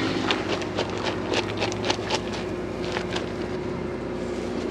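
A steady mechanical hum of a running motor, with scattered irregular clicks and ticks over it.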